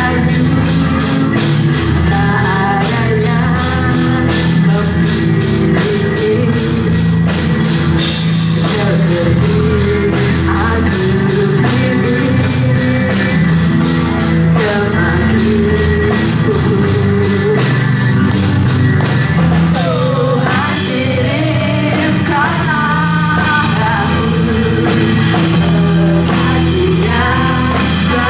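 Band playing a rock song with a singer over drum kit and guitar, the drums keeping a fast, steady beat.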